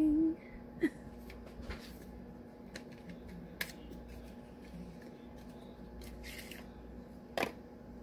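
Scattered small clicks and brief rustles of a cosmetics package being opened and handled, as a color corrector tube is unpacked. There is a sharper click about three and a half seconds in and another near the end.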